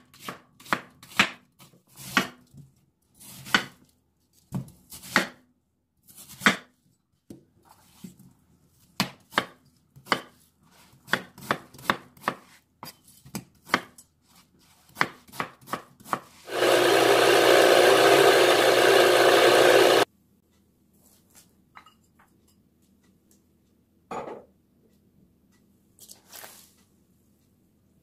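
Kitchen knife chopping onion and other produce on a wooden cutting board, a quick uneven run of chops. About sixteen seconds in, an electric blender grinding the chopped ingredients runs loudly for about three and a half seconds and cuts off suddenly, followed by a few faint knocks.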